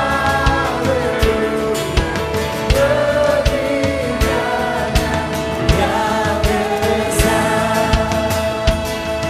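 Live gospel-style music: a group of voices sings over a band with a steady drum beat. About five seconds in, a long note is held.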